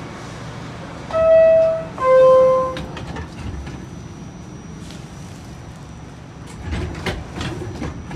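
R46 subway car's door-closing chime: two loud tones, the second lower, a little over a second in. After it come scattered knocks and clunks from the car, most around seven seconds in, over the train's steady rumble.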